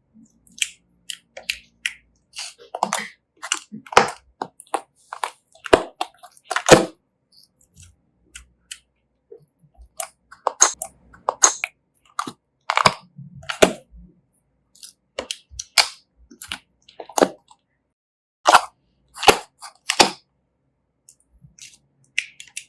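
Slime being squeezed and worked by hand, giving irregular sharp pops and crackling clicks as air pockets burst, some loud and some faint, with short pauses between them.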